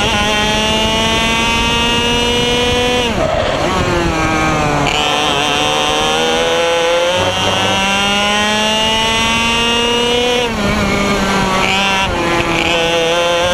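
IAME X30 125cc single-cylinder two-stroke kart engine at full throttle, its note climbing steadily in pitch along the straights. It drops sharply twice, about three seconds in and again about ten and a half seconds in, as the revs fall for corners, then climbs again.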